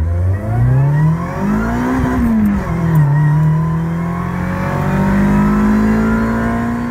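Supercharged Honda D16Y8 SOHC VTEC four-cylinder with a SpeedFactory Street Savage camshaft, accelerating hard at full throttle from inside the cabin. It revs up toward about 7400 rpm, drops in pitch at an upshift a little over two seconds in, then climbs steadily again in the next gear.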